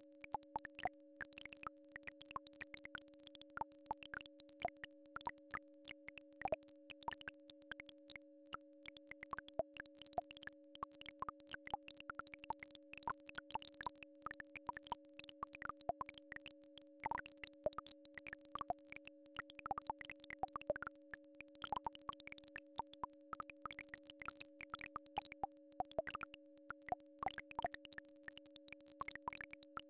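Synthesized entrainment tones: two steady pitches sounding together without a break, one about an octave above the other, under a scatter of short, irregular plinks.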